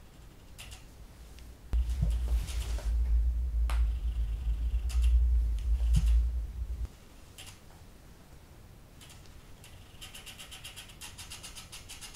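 Canon 700D/T5i kit lens's autofocus motor hunting for focus, heard through the camera: faint scattered ticks and whirs, with a quick run of ticking near the end. A loud low rumble starts about two seconds in and cuts off about seven seconds in.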